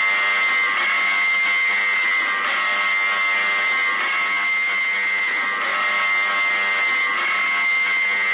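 Loud, harsh buzzing electronic alarm tone from an old emergency alert broadcast, holding steady with a slight pulse about every second and a half.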